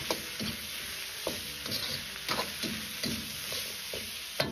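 Potato slices, onion and green and red peppers sizzling in a hot oiled wok while a metal spatula scrapes and tosses them in short strokes, two or three a second: stir-frying until the vegetables are just cooked. A sharp metal knock near the end.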